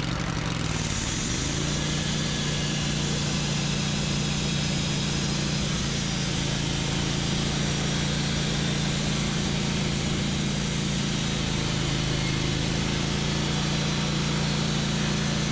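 Wood-Mizer LT15 Wide band sawmill's engine running, rising in pitch about a second in and then holding a steady speed.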